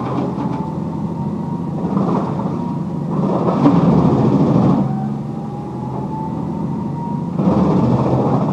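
Heavy machinery running with a steady low hum, swelling into louder, harsher surges about two, three and seven and a half seconds in, and a faint whine that slowly rises in pitch.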